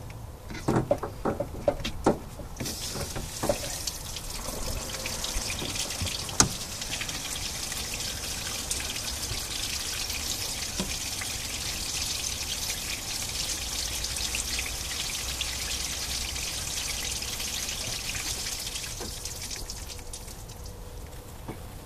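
Water being flushed through a clogged heater core, pouring and splashing out of the disconnected heater hose onto the engine. It starts about two and a half seconds in after a few clicks, runs steadily, then eases off near the end. A single sharp click comes a few seconds in.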